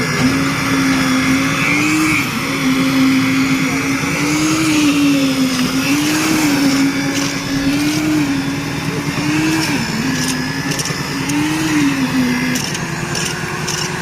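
An engine running steadily, its pitch wavering up and down every second or two as the load changes, then settling at a slightly higher pitch near the end. A few sharp knocks come near the end.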